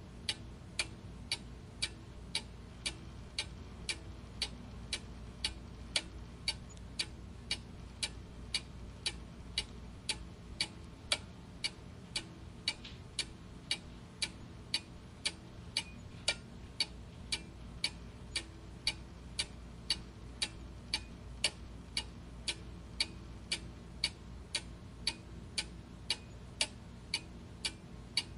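Clock ticking steadily and evenly, about two ticks a second, over a faint low background hum.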